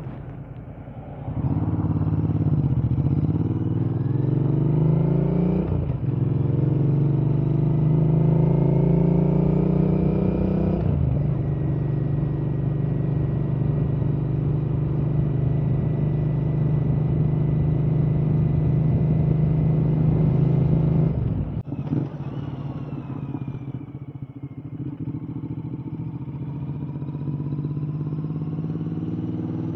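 Royal Enfield Interceptor 650's parallel-twin engine through an S&S 2-into-1 exhaust, accelerating through the gears. Its note rises in pitch and drops at each of two shifts, then holds a steady cruise. About two thirds of the way through the throttle closes sharply, and the engine runs quieter and lower as the bike slows, then builds again.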